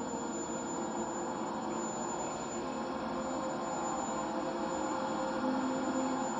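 Steady layered drone of sustained ringing tones, an ambient electronic score, with a thin high whine above it; a low tone swells briefly near the end.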